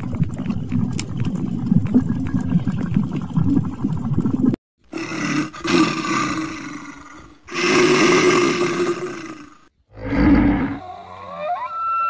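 A dense low rumble full of clicks and crackles. Then a bear gives two long calls, each two to three seconds, at a fairly steady pitch. Near the end there are sliding whistle-like tones.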